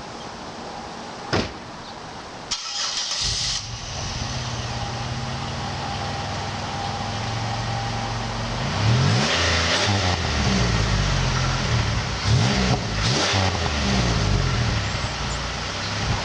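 Pontiac Grand Prix 3800 V6 with a clipped exhaust, a Cherry Bomb resonator and GXP tips: after a sharp click, the engine cranks and starts about two and a half seconds in and idles. About halfway through, it is revved in a string of short throttle blips, each rising and falling.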